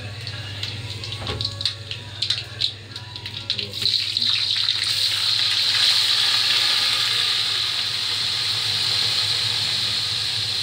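Whole spices crackling in hot oil in an aluminium pot. About four seconds in, a loud, steady sizzling hiss sets in as washed rice and its water are tipped into the hot oil.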